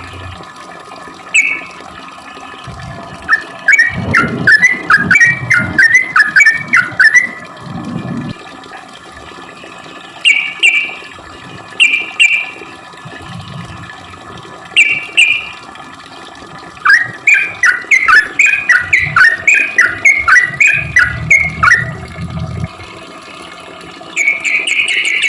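Yellow-vented bulbul singing: short, clipped calls every few seconds, and two long runs of quick bubbling notes, one about three seconds in and one starting around seventeen seconds in.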